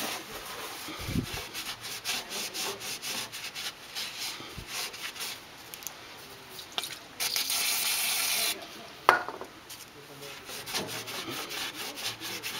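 A rag wiping and scrubbing around a snowblower's gearbox oil plug, with one aerosol burst of brake cleaner hissing for about a second and a half past the middle, followed by a sharp knock.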